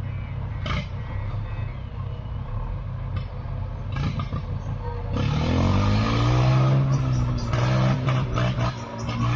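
Diesel engine running steadily at low revs, then revving up about five seconds in, its pitch rising and holding higher and louder.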